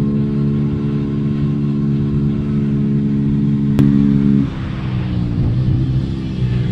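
Beta RR 125 4T single-cylinder four-stroke engine running at steady revs through an exhaust with its dB killer removed. A sharp click comes a little under four seconds in, and shortly after, the engine note drops in pitch and level and then wavers.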